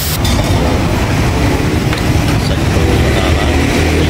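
Steady low rumble of loud background noise, like traffic passing; the frying hiss drops away about a quarter second in.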